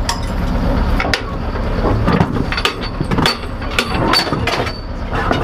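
Irregular metallic clanks and knocks inside a self-propelled howitzer's turret as the crew handles rounds and gear around the breech, over a steady low rumble.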